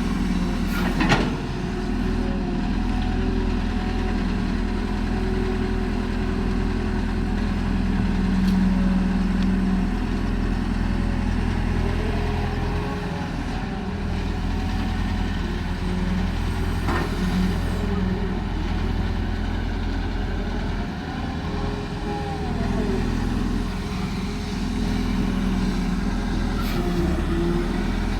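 Caterpillar hydraulic excavator's diesel engine running steadily while it digs, with a whine that rises and falls as the hydraulics work. A few sharp metal knocks come about a second in, around the middle and near the end.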